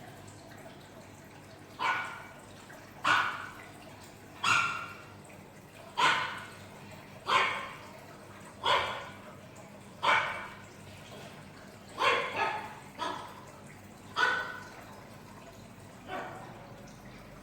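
Dog barking sound effect played back: about a dozen single barks, roughly one every second and a half, with a few bunched closer together a little past the middle.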